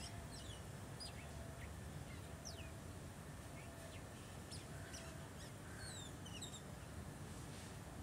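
Birds calling with short, quick high chirps that sweep downward, scattered irregularly, over a faint low background rumble.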